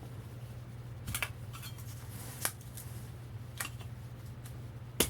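Thin putty knife working at the varnish-glued steel laminations of a transformer core: a few sharp metallic clicks and scrapes as it pries at a bar lamination, the loudest near the end. A steady low hum runs underneath.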